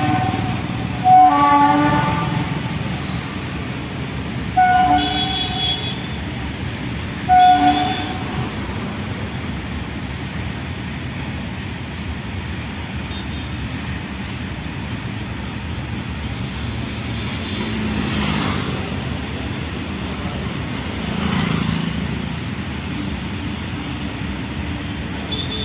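Indian Railways electric locomotive's horn sounding three short blasts in the first eight seconds, then the steady rumble of a long freight train's wagons rolling past on the rails, swelling twice in the last third.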